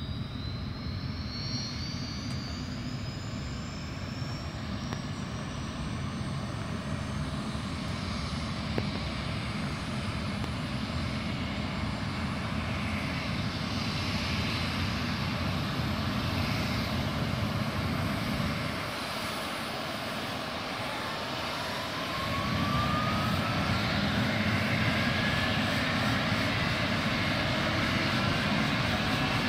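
Twin-turbine air-ambulance helicopter running on the helipad before takeoff: a steady turbine and rotor noise with a high turbine whine rising in pitch near the start. Another rising whine comes in about two-thirds through, and the helicopter runs louder from then on as it spools up.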